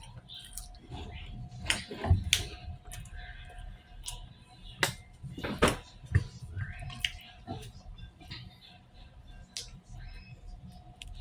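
Close-up eating sounds: irregular chewing, with sharp mouth clicks and smacks, several louder ones about two seconds in and again around the middle. Faint background music runs underneath.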